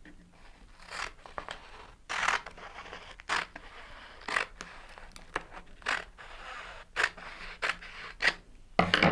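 Paper backing of a vinyl decal being cut: a run of short, crisp cutting strokes, roughly one a second.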